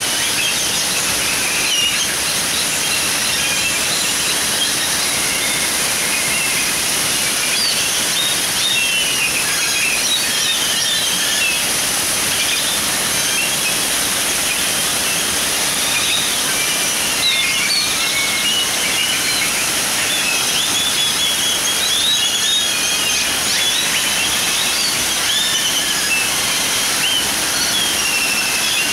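Steady rush of small waterfalls splashing over rockwork into a pond, with many short bird chirps and whistles over it.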